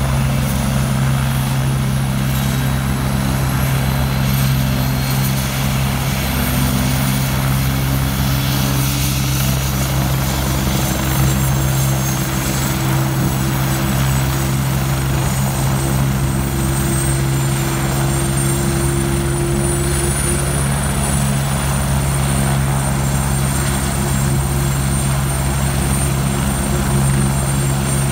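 Agusta A109 K2 helicopter running on the ground with its main rotor turning, from its twin turboshaft engines: a steady low drone under a high turbine whine. A middle tone climbs slowly over the first twenty seconds and then fades out.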